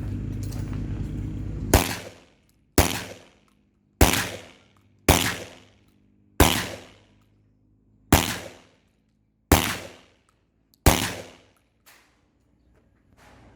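Armed Lethal semi-automatic 12-gauge shotgun firing eight shots in a row, roughly one every one to one and a half seconds, each shot trailing off in a short echo. A steady low rumble stops at the first shot.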